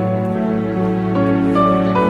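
Instrumental background music: long held notes in slowly changing chords.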